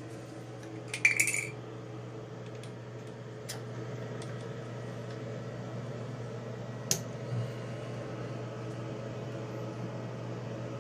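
A few small metallic clinks and ticks as a tool pries the gray piece out of a Delta single-handle faucet body. The loudest is a quick cluster about a second in with a short ring, and there are single ticks later. A steady low hum runs underneath.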